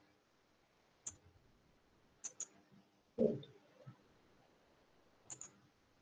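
Faint computer mouse clicks: one about a second in, then quick pairs of clicks at about two and five seconds. A short dull thump near the middle is the loudest sound.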